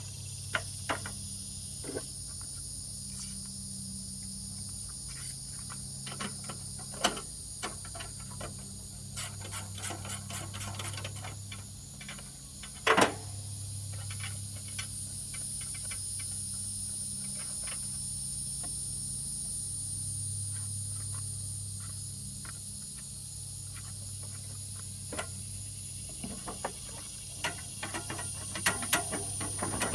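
Scattered small clicks and light knocks of hands and tools working at a riding mower's safety switches and wiring, with one louder knock about halfway through, over a steady high hiss and a low hum.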